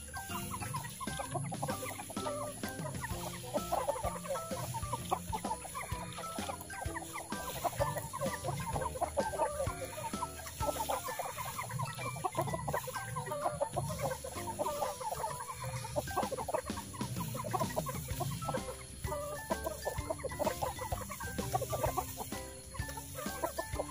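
Several Thai game chickens (ayam Bangkok) clucking continuously, their short calls overlapping.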